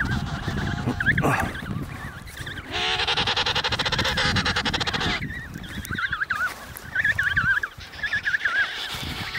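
Emperor penguin chicks whistling in short, wavering trilled calls again and again. About three seconds in, an adult emperor penguin gives one loud, pulsing call lasting about two seconds.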